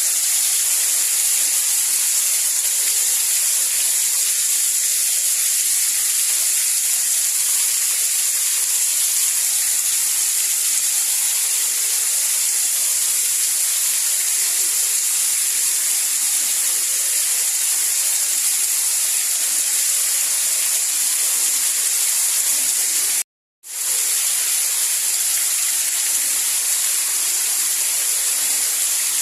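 Steady hiss of falling rain, even and high-pitched with no low rumble. It cuts out completely for a fraction of a second about two-thirds of the way through, then resumes at the same level.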